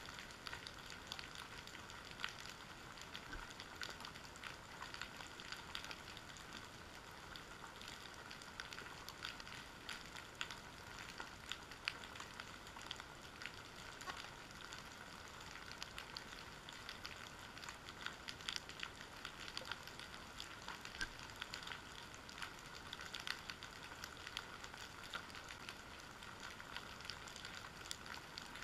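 Underwater ambient noise on a rocky, kelp-covered seabed: a faint, steady crackle of countless tiny clicks and snaps, like fat frying.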